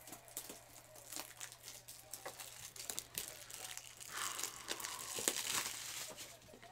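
A trading-card pack wrapper being torn open and crinkled by hand, with many small clicks and rustles. The crinkling is densest about four to six seconds in.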